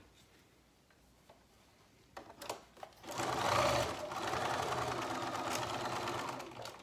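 Electric sewing machine running a straight-stitch seam through layered fabric. A few small clicks come first, then the machine starts about three seconds in, runs steadily and stops shortly before the end.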